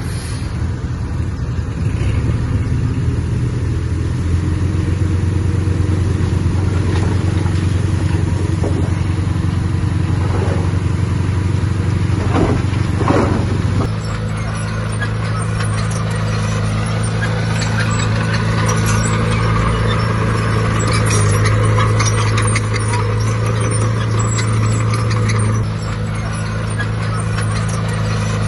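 Heavy diesel earthmoving machinery running steadily, a deep engine drone. About halfway through, a short whine rises and falls, and then the engine note changes.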